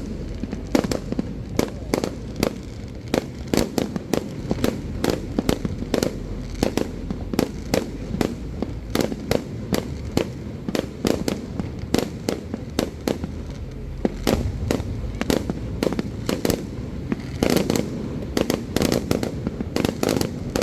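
Aerial fireworks display: a rapid, unbroken string of sharp bangs and pops, several a second.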